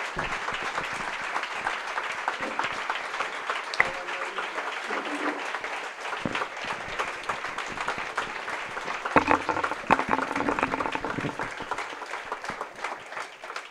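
Audience applauding, a long round of clapping that dies away near the end.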